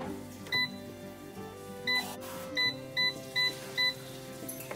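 Digital air fryer's touch control panel beeping as its buttons are pressed to set the temperature: six short beeps of the same pitch, the last four in quick succession. Soft background music runs underneath.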